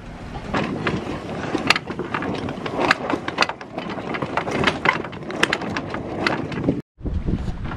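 Sailboat underway: a steady rush of wind and water with many sharp clicks and knocks. The sound cuts out for an instant near the end.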